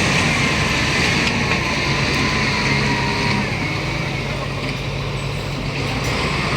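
Heavy machinery running steadily: a constant low engine drone with a broad mechanical din over it, and a faint whine that slides slowly down in pitch in the first few seconds.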